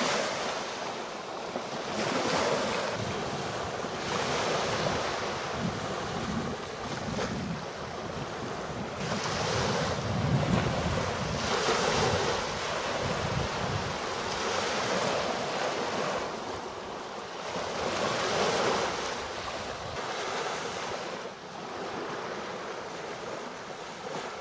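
Small waves breaking and washing up onto a sandy shore, a wash of surf swelling and fading every two to three seconds, with wind buffeting the microphone.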